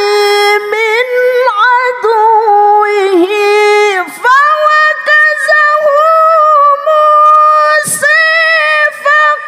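Woman's melodic Quran recitation (tilawah): long held, ornamented vowel notes that waver and glide. After a short breath about four seconds in, she goes on at a higher pitch.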